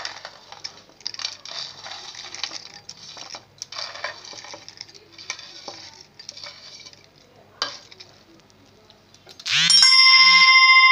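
Crisp fried badi (sun-dried lentil dumplings) crackling and crunching as they are broken up by hand over a steel mortar, with light clinks against the steel. Near the end a loud steady ringing tone starts suddenly with a rising sweep and holds.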